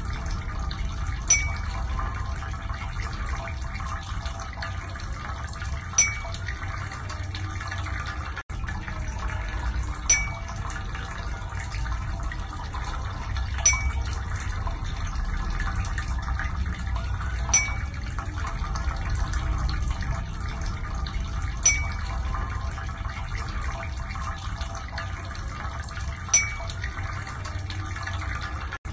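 Steady running-water noise with a single water-drop plink about every four seconds.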